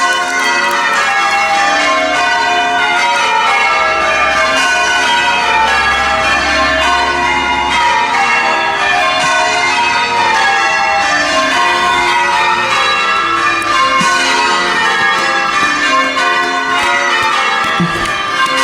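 Church tower bells being change rung full circle, each bell struck in turn so that the strikes fall in steady, repeating descending runs.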